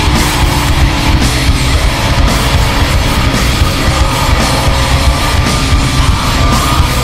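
Loud rock music with a steady driving beat.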